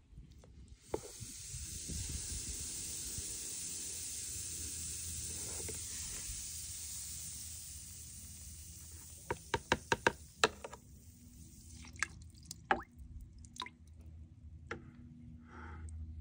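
Muriatic acid fizzing as it eats the crust off a scallop shell: a steady hiss that starts about a second in and slowly fades. Then comes a quick run of sharp taps, the plastic spatula knocked against the bucket to shake the acid off the shell.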